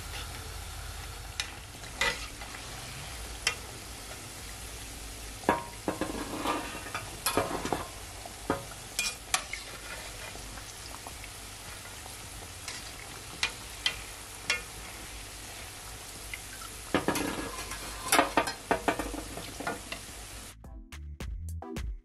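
Cornmeal festival dumplings deep-frying in a heavy enamel pot of oil, a steady sizzle with scattered clinks and scrapes of a metal slotted spatula as they are turned. About twenty seconds in the frying gives way to music with a steady beat.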